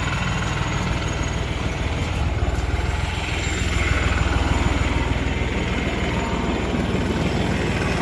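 New Holland T3 75 tractor's 75-horsepower common-rail diesel engine running steadily, swelling slightly louder about halfway through.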